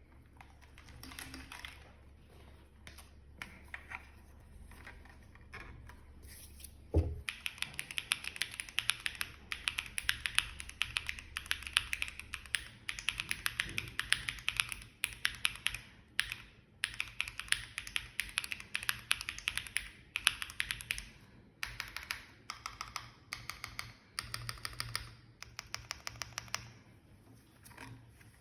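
Typing on an M.one studio TATA80 mechanical keyboard with hand-lubed Keygeek Raw switches, EPBT double-shot ABS keycaps and an FR4 plate with no foam. Scattered keystrokes at first, then, after a low thump about seven seconds in, fast continuous typing broken by short pauses.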